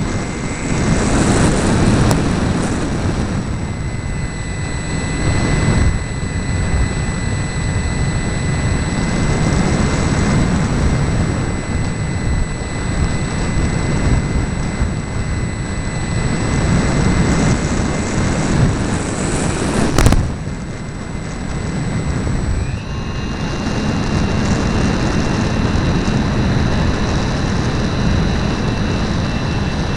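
An RC model airplane in flight, heard from its onboard camera: wind buffets the microphone with a heavy, uneven rumble, and the motor gives a thin, steady whine above it. Two-thirds of the way through there is a single sharp click, and soon after the motor's whine steps up in pitch.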